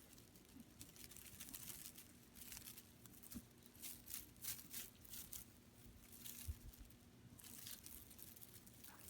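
Faint rustling, crinkling and scratching in short irregular bursts over a steady low hum.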